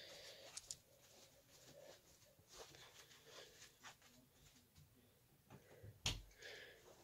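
Near silence with faint rustles and a few small clicks, then one dull thump about six seconds in.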